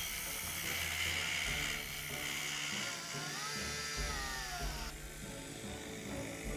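Small electric drive motors of a homemade 1:32-scale RC model excavator whining as it works, the pitch rising and then falling in the middle, over background music.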